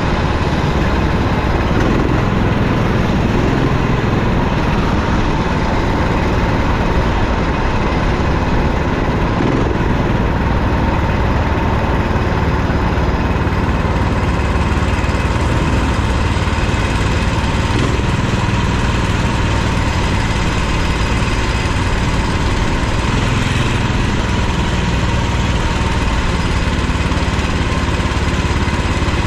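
Go-kart's small single-cylinder engine running steadily at a nearly constant pitch, with no sharp revving.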